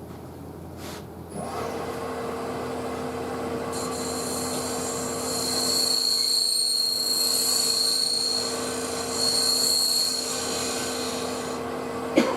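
Wood lathe comes up to speed about a second and a half in and runs with a steady hum, while from about four seconds in until near the end a turning tool rubs against the spinning maple burl with a high hiss. A single sharp knock near the end.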